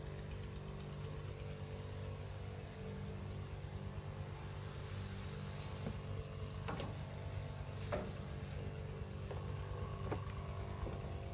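Knapsack sprayer's pump motor running with a steady low hum while the lance sprays, with a few sharp clicks in the second half.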